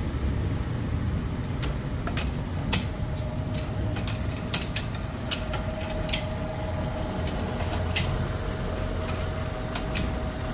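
Toyota 1NR-FE four-cylinder engine idling, a steady low hum with sharp clicks at irregular spacing. A thin steady whine joins a few seconds in. The engine is one being checked for excessive noise after a timing chain replacement.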